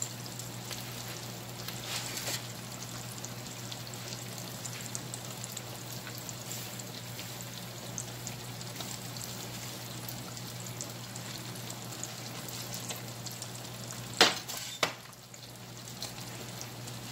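Breaded fish fillets shallow-frying in hot oil in a skillet: a steady sizzle with fine crackling pops. About fourteen seconds in come two sharp knocks, half a second apart.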